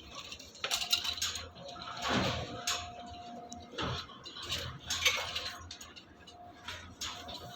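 Scattered metallic clinks and knocks at irregular intervals, over a low steady hum, with a brief steady tone for about a second near the middle.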